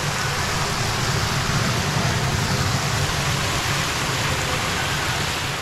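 Stream water tumbling over a small drop: a steady, loud, even rush of water.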